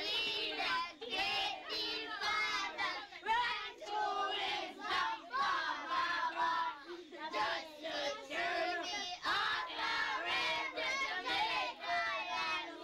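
A group of children singing together, many voices at once.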